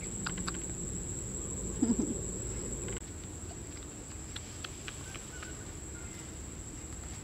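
Steady high-pitched drone of insects in grass, with scattered faint clicks and a short low vocal sound about two seconds in.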